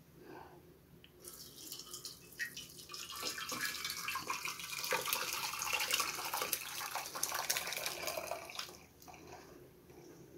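Hot tamarind and dried plum (aloo bukhara) syrup poured from a steel pan through a stainless mesh strainer into a saucepan: liquid splashing and trickling, with a few short knocks. It starts about a second in, is loudest in the middle and tails off near the end.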